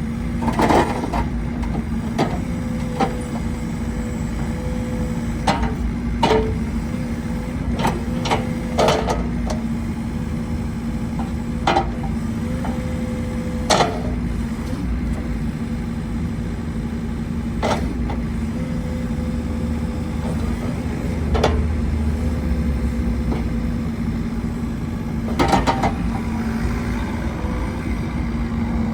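Bobcat E50 mini excavator's diesel engine running steadily, with about a dozen sharp metallic clanks scattered through it.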